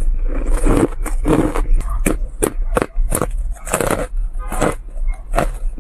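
Ice being bitten and chewed: a quick run of crisp crunches, about two a second.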